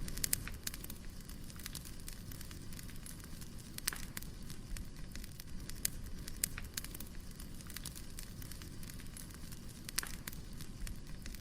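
Wood fire burning: a steady low rumble with sharp crackles and pops at irregular intervals, a few of them louder, including a cluster right at the start and single pops about 4 and 10 seconds in.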